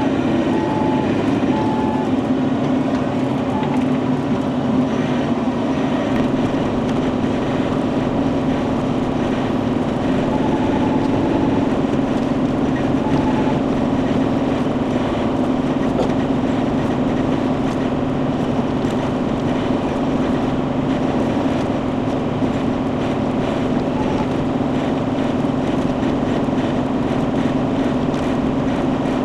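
Diesel engine of Bobcat compact equipment running steadily, a constant drone with no revving or pauses.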